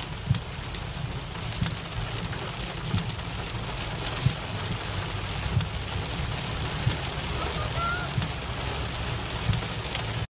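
Heavy rain on a car's roof and windshield, heard from inside the moving car: a steady hiss with irregular louder knocks of heavier drops.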